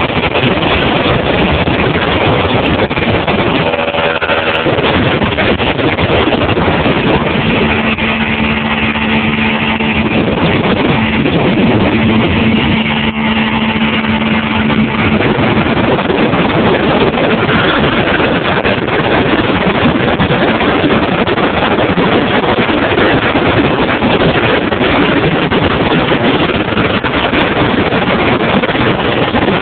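Motorboat running at speed, its engine under a steady rush of wind and water noise. A steady engine tone stands out for several seconds in the middle.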